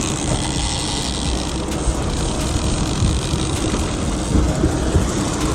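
A fishing boat's engine running steadily, with wind and water noise over it.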